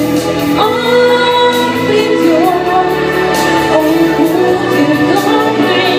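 Music with a woman singing over an instrumental backing.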